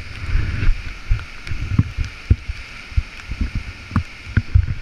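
Steady rush of a waterfall and whitewater close by, with about ten irregular low thumps and bumps close to the microphone.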